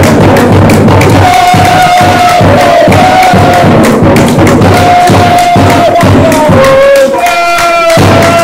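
Football supporters singing a chant together, loud and close, over a steady beat of hand-clapping.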